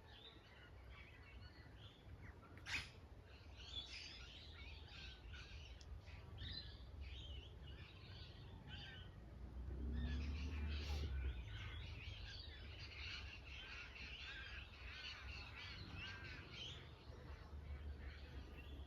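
Wild birds singing and calling, a chorus of many short chirps and trills that thickens after about ten seconds, with a brief low rumble around then.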